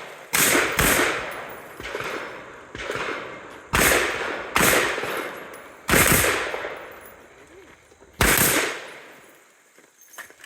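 Rifle shots fired one after another, about six loud reports at uneven gaps of half a second to two seconds, each trailing off in an echo, with a couple of fainter shots in between.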